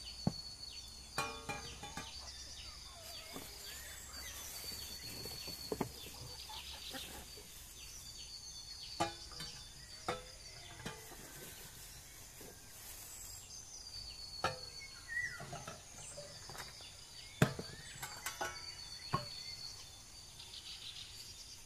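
Rural outdoor ambience: insects trilling steadily, with birds chirping now and then. About a dozen sharp knocks and clicks are scattered through it, the loudest about three-quarters of the way through.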